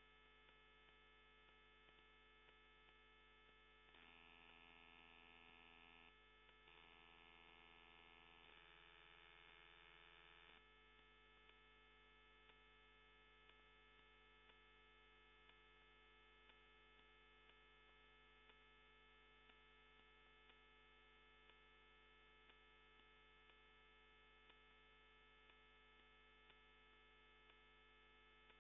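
Near silence: a faint, steady electrical mains hum, with a brighter, slightly louder whine joining it from about four seconds in until about ten seconds in.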